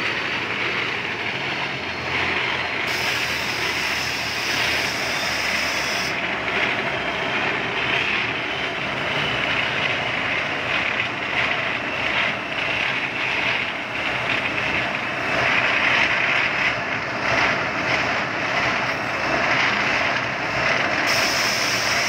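Tracked rice combine harvester's diesel engine running steadily as the machine drives on its crawler tracks.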